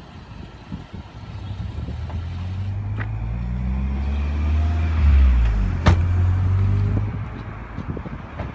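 A motor vehicle's engine rumble builds up, peaks and then fades with its pitch falling. A single sharp knock comes just before six seconds in, fitting a car door shutting.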